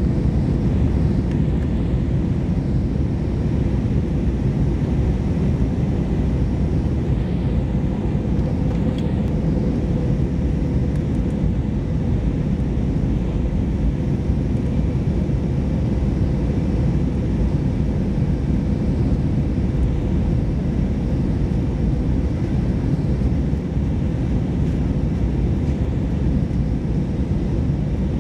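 Steady cabin noise inside an Airbus A319-100 during descent: the rumble of engines and rushing air heard from a window seat over the wing, with a faint steady hum above it.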